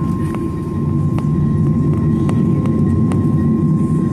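Boeing 737-900ER cabin: the CFM56 jet engines give a loud, steady rumble with a thin steady whine, and the loudness builds slightly about a second in. About five sharp clicks or knocks come at irregular intervals.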